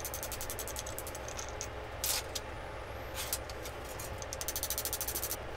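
Rapid, even metallic ticking, about ten a second, from the rust-seized spindle and gear mechanism of an antique cast-iron post drill being worked loose by hand. The ticking pauses in the middle, where two louder knocks come about a second apart, then resumes.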